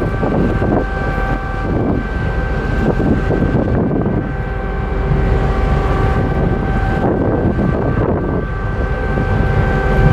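Wind buffeting the microphone over the steady low drone of the ferry MV Queen of Cumberland's machinery, with a high, steady whine on top.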